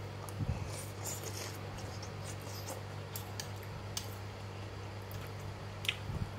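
Eating noodle soup: scattered small clicks of a metal fork and spoon against a ceramic bowl, with soft wet sounds of stirred noodles and chewing, over a steady low hum.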